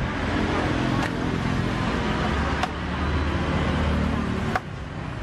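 Street traffic noise. A motor vehicle's low engine rumble swells for about two seconds in the middle, and a few sharp clicks come through.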